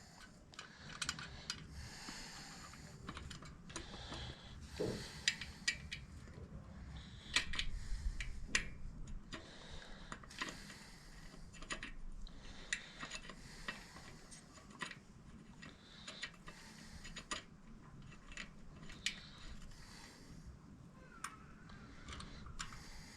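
Irregular small metallic clicks and clinks as a 4mm Allen key turns the bolts of a motorcycle's decorative engine cover to refit it, with a few short rattling runs of clicks.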